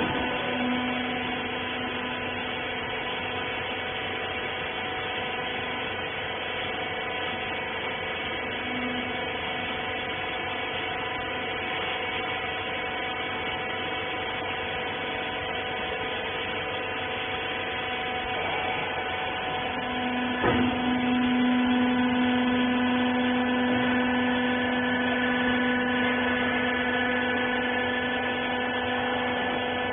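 Hydraulic rag baler's electric pump motor running with a steady hum and whine. A sharp click about twenty seconds in, after which the hum grows louder, as when the press goes under load.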